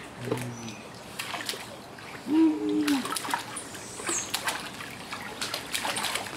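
Pool water splashing and lapping as a baby is held and dipped into it, with scattered small splashes. A short voice call, the loudest sound, comes about two and a half seconds in.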